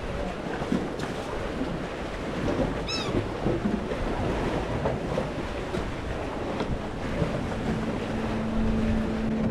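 Wind buffeting the microphone over waves and water noise on an open boat, with a brief high squeak about three seconds in. Steady notes of background music fade in near the end.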